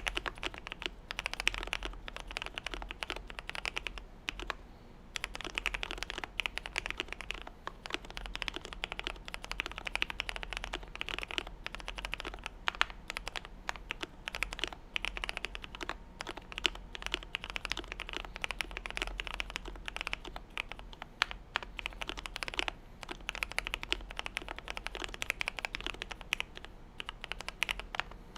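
Fast, continuous typing on a GMMK Pro mechanical keyboard with lubed and filmed Gateron Yellow KS-3 linear switches, a polycarbonate plate and PBT keycaps. The keystrokes pause briefly about four seconds in.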